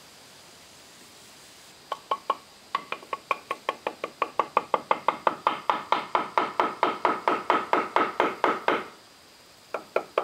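A fast, even run of sharp knocks, about six a second, that grows louder for some seven seconds and then stops suddenly, with three more quick knocks near the end.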